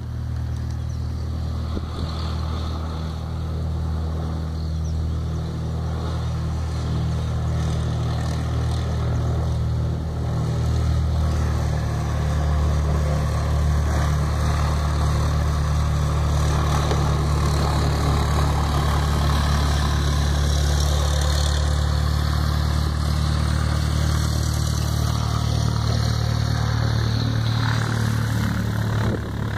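Cessna 172 light aircraft's piston engine and propeller running at taxi power: a steady low drone that grows louder about ten seconds in and stays loud.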